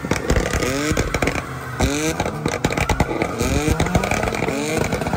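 A 4x4 truck doing a burnout: its engine is revved hard in quick, repeated rising bursts over the noise of a rear tyre spinning and smoking on the tarmac.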